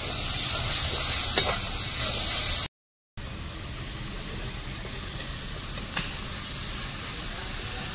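Raw spice masala sizzling as it fries in hot oil in a steel kadai, stirred with a steel ladle with a few light scrapes and ticks; it is being roasted until the oil separates. After a half-second break the sizzling goes on more quietly as boiled jackfruit pieces are tipped into the pan, with one sharp clink about six seconds in.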